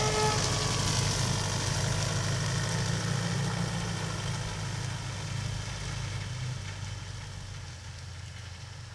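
An SUV's engine running as it pulls away towing a trailer loaded with a tractor, with tyre noise on gravel. The sound fades steadily as the vehicle drives off.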